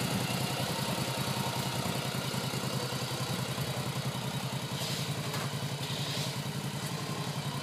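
Cruiser motorcycle engine running at a steady idle, an even, rapid low pulsing that holds without revving.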